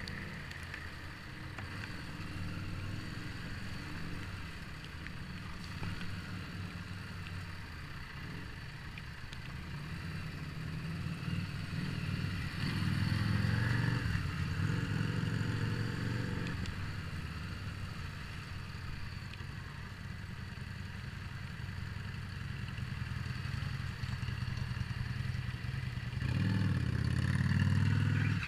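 Harley-Davidson Street 750's V-twin engine running at riding speed, with wind and road hiss, growing louder about halfway through and again near the end.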